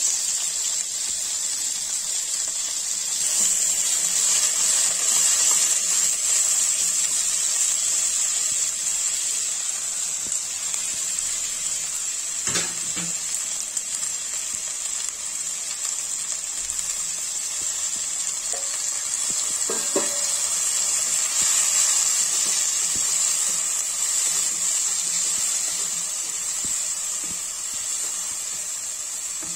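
Drumstick (moringa pod) pieces frying in hot oil in a pan, a steady sizzle, with a couple of short knocks from a utensil partway through.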